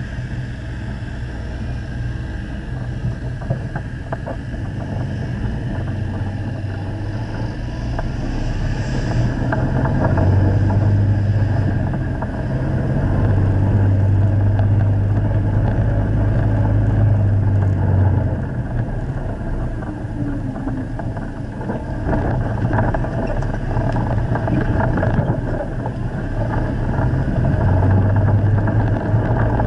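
Steyr-Puch Haflinger's air-cooled flat-twin engine running under load off-road, its note rising and falling with the throttle and louder in the middle and near the end.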